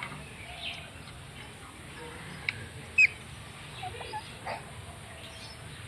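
Indian ringneck parrot giving scattered short calls, the loudest a single sharp squawk about three seconds in, with fainter chirps around it.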